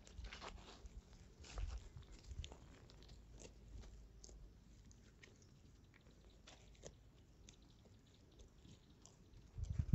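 Faint, scattered crunching and crackling in dry brush, thickest in the first couple of seconds, with a louder low thump just at the end.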